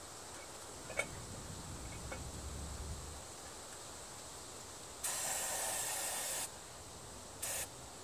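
Aerosol can of ether starting fluid sprayed into the engine's intake: one hiss of about a second and a half, then a short second burst.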